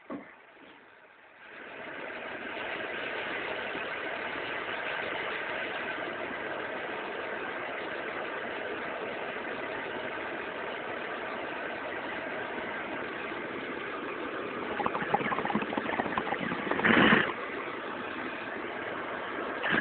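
Torch flame hissing steadily as it heats a knife for a dab; it lights about a second and a half in. Louder crackly bursts come over it around fifteen to seventeen seconds in.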